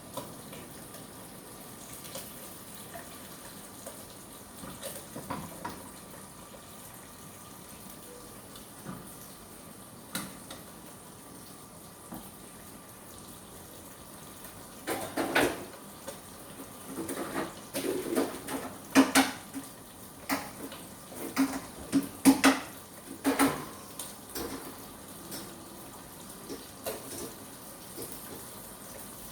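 Kitchen sink with water running from the tap, and pots and utensils clattering and clinking in a busy flurry of knocks around the middle.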